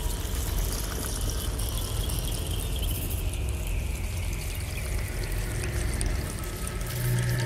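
Steady trickling, water-like noise with scattered small clicks, and a faint high band that slowly falls in pitch.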